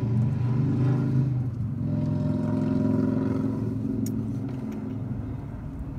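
Motor vehicle engine noise from passing traffic: a steady low engine hum that swells about two seconds in and then slowly fades as a vehicle goes by.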